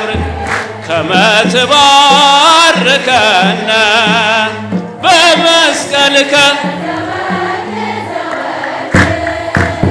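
Music: an Ethiopian Orthodox hymn (mezmur) sung in Amharic by a choir of voices with vibrato over a stepping bass line.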